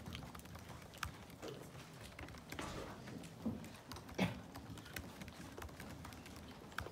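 Scattered clicks of laptop keyboard typing, with low rustling and shuffling and one louder bump about four seconds in.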